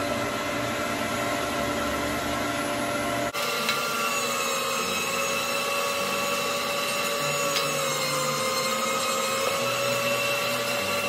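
Electric meat grinder motor running with a steady whine while bacon is fed through it. An abrupt jump about three seconds in, and the whine sags slightly in pitch about eight seconds in before recovering.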